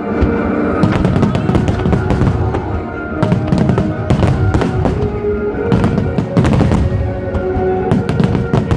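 Fireworks shells bursting in quick succession, many bangs a second, over music playing throughout.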